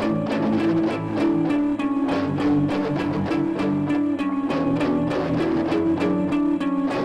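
Background music: loud, guitar-driven punk rock with a steady drum beat.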